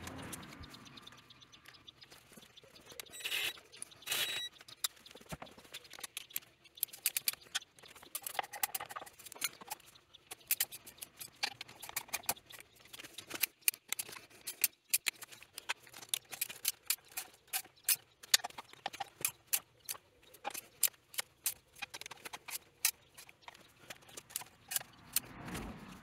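A long-handled ratchet wrench clicks in quick, repeated strokes as nuts on the rebuilt cylinder head of a small four-stroke motorcycle engine are tightened. A louder rustle comes about three seconds in.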